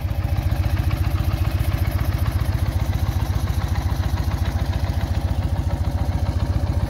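1962 BMW R60/2's 600 cc flat-twin (boxer) engine idling with a steady, even beat.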